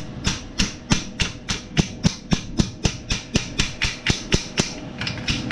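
Steady hammer blows, about four a second, evenly paced, while freeing rusted parts under a car.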